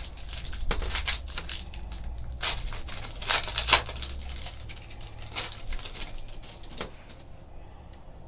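Trading card packs and cards being handled: quick crinkling, rustling and sharp clicks from the wrappers and cards, busiest around the middle and dying away near the end.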